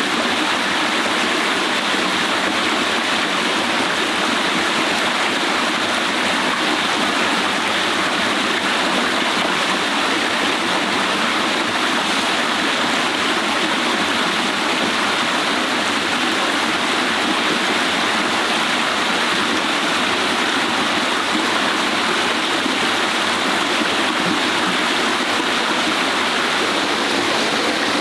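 Shallow rocky forest stream running over stones, a steady, unbroken rush of water.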